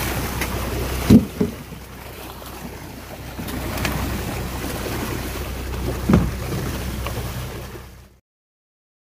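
Water splashing and churning as a netted catch of fish thrashes at the surface beside a fishing boat, over a steady low engine hum. Two sharp thumps stand out, about a second in and about six seconds in, the second louder. The sound cuts off suddenly a little after eight seconds.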